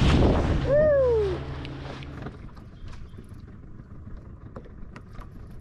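A person's high, drawn-out exclamation falling in pitch, over loud wind and water noise, as dolphins surface beside a small boat. Near the halfway mark the sound drops sharply to quiet water ambience with scattered faint clicks.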